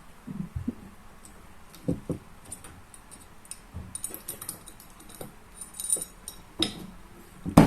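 Irregular light clicks and metallic taps of small metal parts being handled while a trigger assembly is taken apart, with a louder knock near the end.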